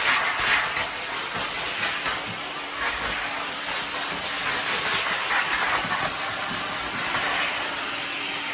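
Vacuum cleaner running with its handle off, the bare hose sucking dust off the leaves of an artificial plant: a steady loud hiss over a low hum.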